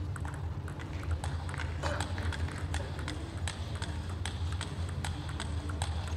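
Irregular light clicks and taps of table tennis balls in a playing hall, over a steady low hum.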